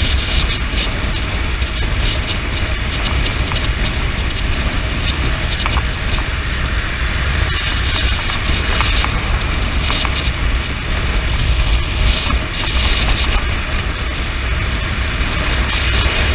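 Honda CB motorcycle ridden at highway speed: a steady rush of wind and engine noise over a heavy low rumble.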